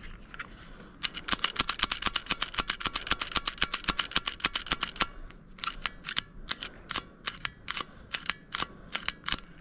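Rapid, even metallic clicking, about eight clicks a second for some four seconds, then slower, uneven clicks.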